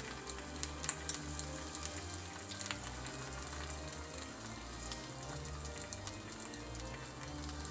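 A mac and cheese patty frying in a pan, with scattered small crackles and pops over a faint sizzle. Background music plays underneath.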